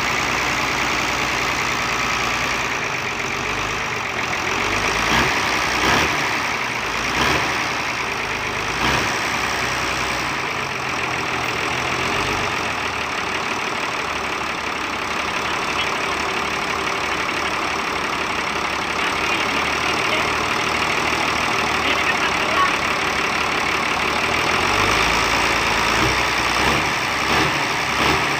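Hino FM260TI truck's six-cylinder diesel engine running at idle, a steady clatter with a few brief rises in loudness.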